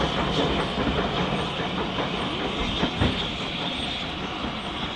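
Steam train moving through the station, its wheels clacking over the rail joints, with a sharp knock about three seconds in. The sound fades slightly as the train draws away.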